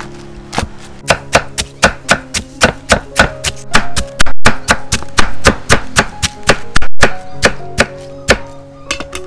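Knife chopping food in quick, uneven strokes, about three or four a second, over background music.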